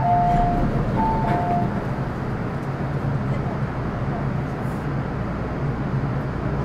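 Train door-closing chime on an MTR M-Train: a high–low two-tone signal sounds twice in quick succession, warning that the doors are closing. The train's steady equipment hum continues under and after it.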